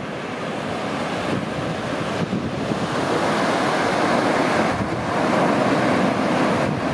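Sea waves washing, with wind rushing over the microphone; the surge swells louder through the middle and eases near the end.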